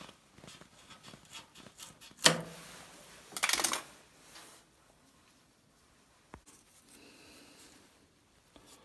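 Hand-work noises on a fireplace door's sealing cord: light rustles and clicks, a sharp knock about two seconds in, and a short rasp around three and a half seconds, then quieter with one more click near the end.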